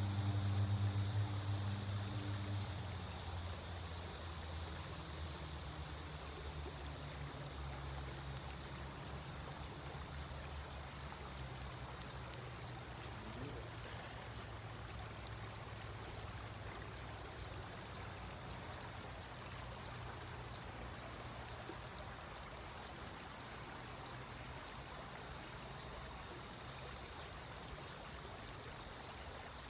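Steady rushing of water from a small waterfall on the river. A low hum is loudest in the first two or three seconds, then sinks to a faint drone under the water.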